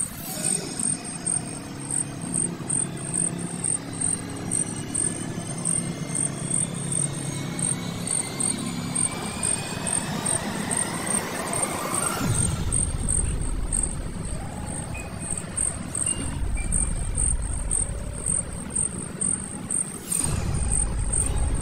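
Insects chirping in a steady high pulse, about three chirps a second. Under them an engine passes with a gliding pitch, followed by a low rumble over the last several seconds.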